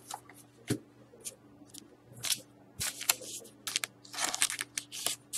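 A thick trading card being slid into a plastic card sleeve by hand: short crinkles, scrapes and clicks of the plastic in irregular bursts.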